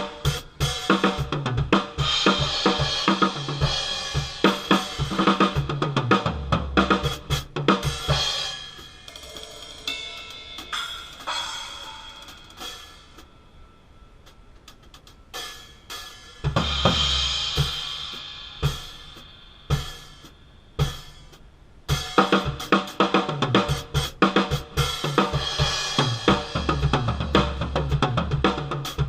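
Drum kit played with Arborea Viking series cymbals: busy grooves of bass drum, snare, hi-hat and cymbal crashes. In the middle the playing thins to sparse hits with cymbals ringing and fading, then the full groove returns, with a brief break near the end.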